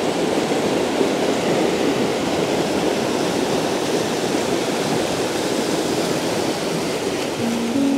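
Fast-flowing river water rushing and splashing in a steady, even wash. Soft piano music comes in near the end.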